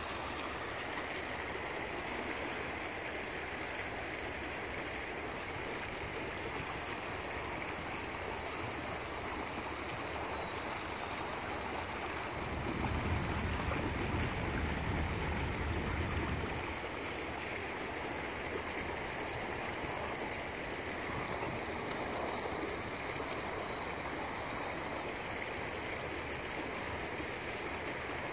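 Small stream running and splashing over rocks in a low cascade, a steady rushing of water. For a few seconds midway a low rumble rises under it.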